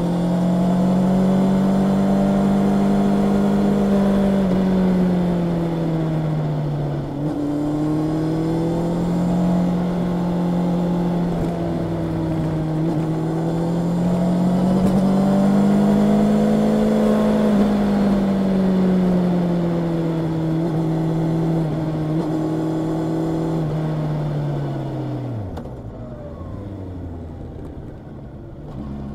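Honda CB650R's inline-four engine running on the road. Its note holds, dips and rises again with the throttle, then falls in pitch and gets quieter near the end as the bike slows.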